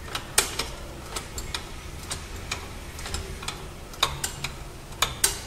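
Light metallic clicks and taps, irregular, a few a second, as the rear dead axle's mounting bolt is worked out of its bush by hand.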